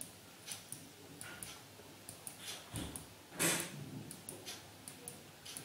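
Faint computer mouse clicks, about two a second, as images are clicked through one after another. A short, louder rush of noise comes about three and a half seconds in.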